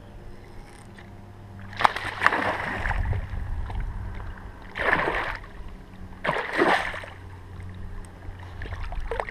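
Water splashing in three short bursts in the shallows at the bank around a small pike, the first opening with a sharp slap about two seconds in. A low steady rumble sits underneath.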